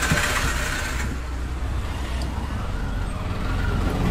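Road traffic heard from a taxi: a steady engine and road rumble with a wash of traffic noise, and a faint tone rising and falling in the second half.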